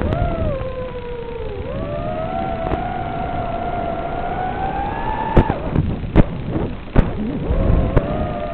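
A 5-inch FPV quadcopter's motors whining, the pitch rising and falling with the throttle. About five seconds in the whine breaks off and several sharp knocks or cracks follow before it picks up again.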